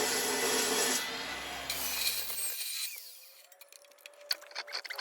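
Chop saw cutting through sleeve pipe. About a second in the cut ends and the motor spins down, its hum dying away over the next second or so. Light clicks and knocks follow as the pipe is handled.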